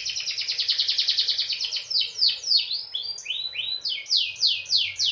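Domestic canary singing. It opens with a fast rolling trill of rapidly repeated notes, then gives a run of quick downward-sweeping whistled notes, a few each second. This is the busy 'gacor' song used as a lure to get other canaries singing.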